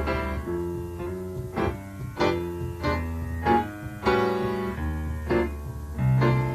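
Live jazz-fusion jam: electric bass playing low notes under keyboard chords, with new notes and chords struck every half second to a second.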